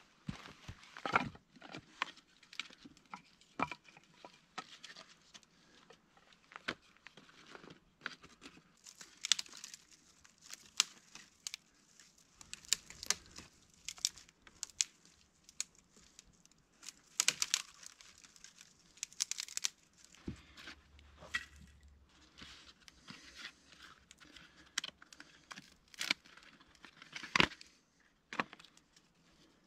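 Irregular rustling and crinkling with scattered sharp clicks and snaps throughout.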